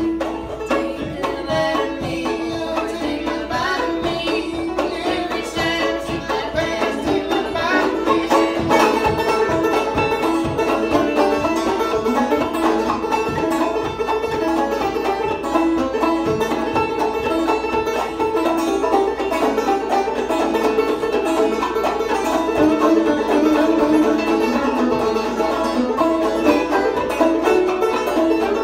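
Two banjos playing an old-time tune together, clawhammer style: a steady, driving run of plucked notes, getting a little fuller about eight seconds in.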